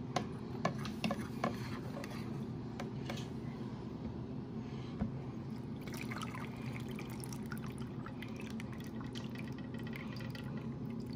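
A fork ticking a few times against a fat separator as it stirs, then meaty cooking juices poured from a glass baking dish into the separator, trickling and dripping in.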